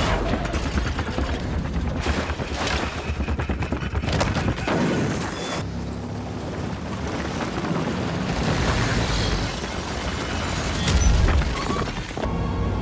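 Film sound mix of a propeller bomber's engines running hard on a takeoff run, with rumbling booms and repeated crashing impacts. There is a heavy boom about eleven seconds in, and music comes in near the end.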